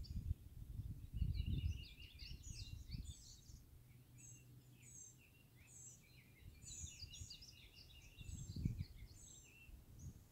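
Several songbirds chirping and trilling in overlapping, quick high notes, with low rumbling thumps on the microphone about a second in and again near the end.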